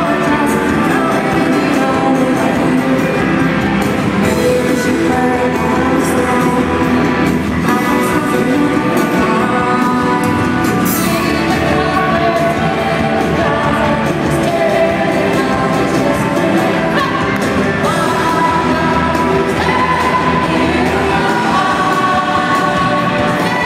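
Rock band playing live with lead vocals, loud and steady, recorded from within the audience.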